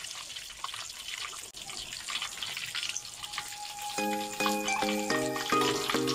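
Chicken deep-frying in hot oil in a wok, a light crackling sizzle: the chicken's juices have little left to sputter, which the cook takes as the sign that the chicken is done. About four seconds in, background music with an even run of plucked notes comes in over it.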